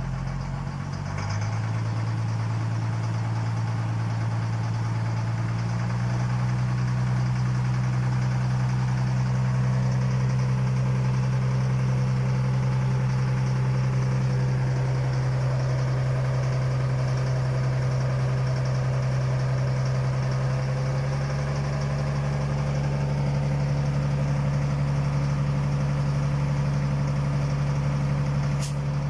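A steady engine drone like a truck idling, shifting in pitch a few times, with a short click near the end.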